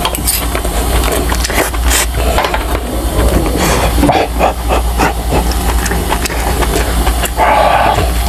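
Close-miked eating sounds: chewing and wet mouth noises with spoon and fork clicks, and breathy huffing out through the mouth over food that is still hot. A steady low hum runs underneath.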